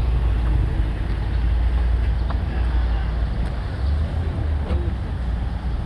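Car being driven: a steady low rumble of engine and road noise, with a few faint ticks.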